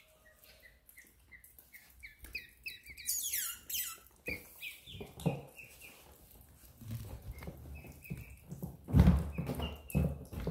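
Ducklings peeping in short, repeated, falling chirps, with a brighter, higher cry about three seconds in. A dull thump, the loudest sound, comes near the end.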